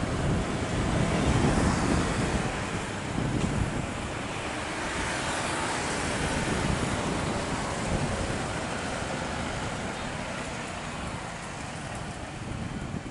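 Jet engines of an Airbus A320 at takeoff thrust during its takeoff roll, a steady rushing rumble heard from across the airfield, a little louder in the first few seconds, then easing slightly.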